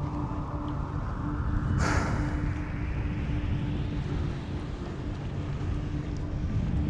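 Strong wind buffeting the microphone on a sailboat, with a sharp surge about two seconds in, under background music with a held low tone and a slowly rising swell.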